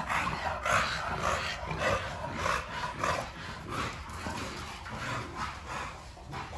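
Two American bully dogs vocalizing in short, repeated bursts while they tussle, most often in the first three seconds and fewer after.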